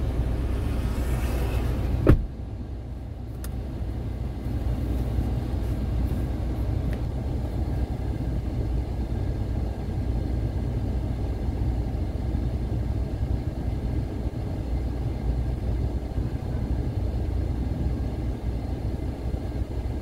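Steady low rumble of a car heard from inside the cabin. About two seconds in there is a single sharp thump, the loudest sound here, after which the hiss from outside falls away.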